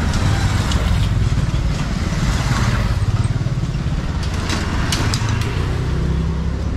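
Road traffic running close by, with a motorbike engine most prominent, and a few sharp clicks about two-thirds of the way in.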